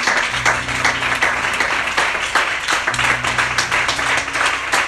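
A congregation applauding with many hands clapping, over low held tones that sound twice, each lasting a couple of seconds.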